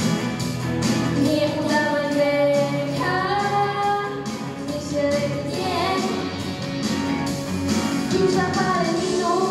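A girl singing a pop song into a handheld microphone, with held, gliding notes over an instrumental accompaniment with a steady beat.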